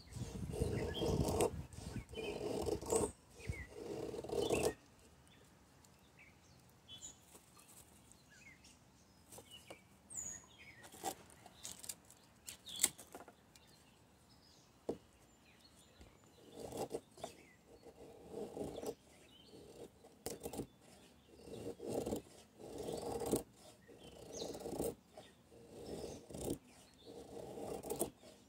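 ESEE RB3 knife shaving long curls off a soft pine stick: repeated scraping strokes of the blade along the wood, about one a second. The strokes stop for several seconds in the middle, leaving only a few faint high chirps, then start again.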